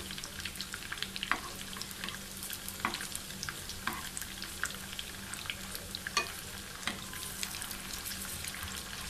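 Beef kababs shallow-frying in oil in a nonstick pan, sizzling steadily, with a few sharp clicks as a spoon turns them.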